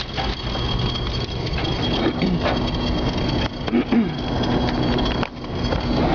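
Wind-driven rain beating on a car, heard from inside the cabin during a tornado. A thin steady high tone runs through it and cuts off about five seconds in.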